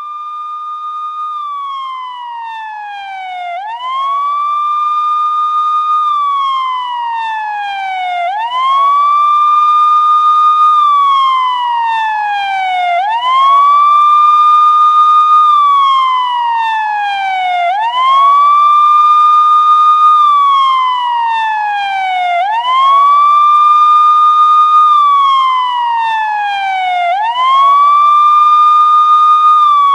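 Police siren wailing: a tone rises quickly, holds high for about two seconds, then slides slowly down, repeating about every four and a half seconds. It grows louder over the first ten seconds, then stays loud.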